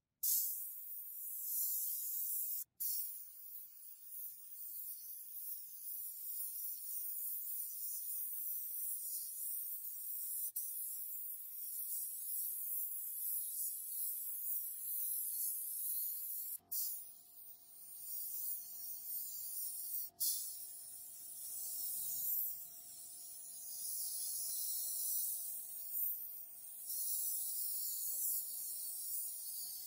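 Compressed-air siphon-feed spray gun spraying paint: a steady high hiss, broken off briefly a few times. A faint steady hum joins about halfway through.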